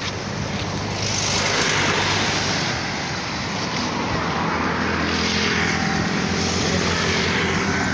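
Road traffic passing close by: a jeepney and cars going past, a steady engine hum under loud tyre and road noise that swells about a second in.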